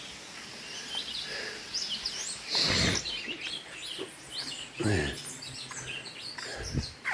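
Birds chirping in many short, quick calls, with three louder short bursts of noise about two and a half, five and almost seven seconds in.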